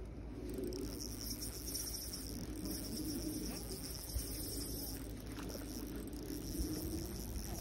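Spinning reel making a steady high-pitched buzz as a hooked trout is played and wound in on a light rod.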